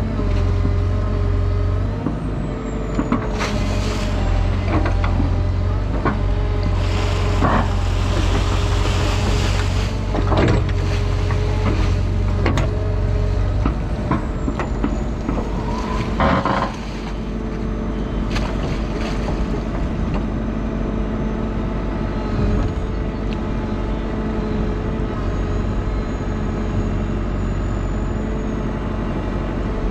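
Hydraulic excavator's diesel engine running steadily under load while the bucket digs in a waterlogged ditch, with repeated knocks and clanks from the bucket and arm. About halfway through the deepest part of the engine note drops away. The digging is clearing watercress that has blocked a culvert.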